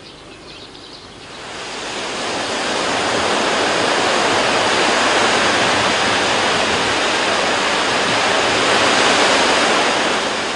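Surf breaking on a sandy beach: a steady rush of waves that swells in over the first couple of seconds and fades near the end.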